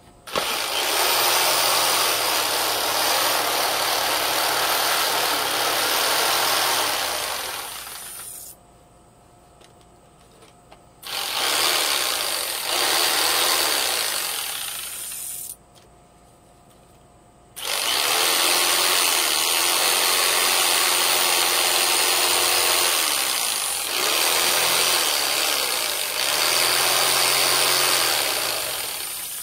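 A power tool running in three long bursts, each starting abruptly, with short pauses between them. The first burst fades off rather than stopping sharply.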